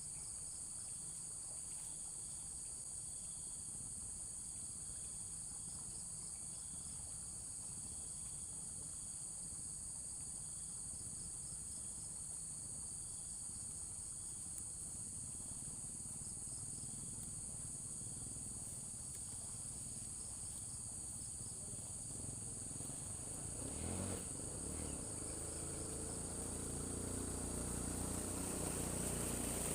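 Steady high-pitched buzzing chorus of insects, with a faint fast pulsing under it. In the last several seconds an engine comes in low and grows steadily louder, with a single knock as it starts.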